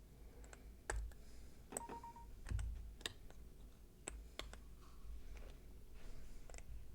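Scattered light clicks and taps, one or two a second, with one short electronic beep about two seconds in.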